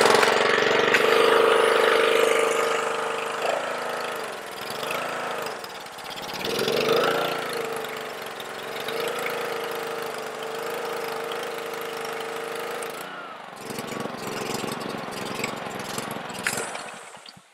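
Honda engine of a Ryobi pressure washer running unevenly: its speed sags and picks up again twice, holds steady, then weakens and drops away near the end. It is the sign of a carburetor fault that keeps the engine from holding idle.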